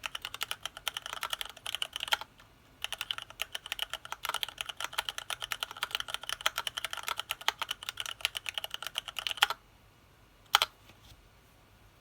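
Fast typing on a Tofu HHKB-layout mechanical keyboard with retooled black linear switches: a rapid run of keystrokes with a short pause a little after two seconds. The typing stops about nine and a half seconds in, and one louder single click follows about a second later.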